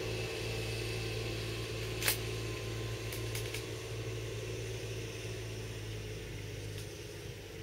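Steady low hum of range ambience, with one sharp crack about two seconds in and a few faint clicks a little later.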